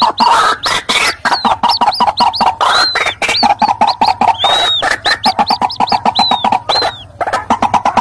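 White-breasted waterhens calling noisily, adult and chick calls mixed: a fast, unbroken run of harsh repeated notes with high, arching calls over it.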